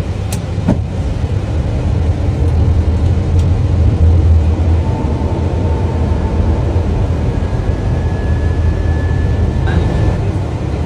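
Airliner landing rollout heard from the cockpit just after touchdown: a loud low rumble with reverse thrust engaged, building to a peak about four seconds in and then easing slightly as the aircraft slows.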